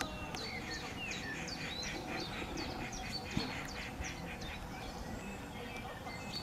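Birds calling: a quick run of short chirps, about four or five a second, that thins out after about four seconds, over steady low background noise.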